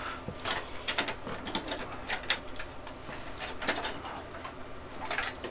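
Irregular small clicks, knocks and rattles of power-supply cables and plastic connectors being handled and pulled loose inside a Dell Dimension 9200 desktop case, as the old power supply's wiring is disconnected.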